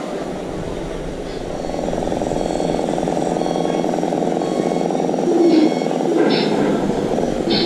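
Steady muffled rumble of radio-controlled model trucks running on a wooden floor. A few short higher-pitched sounds come near the end.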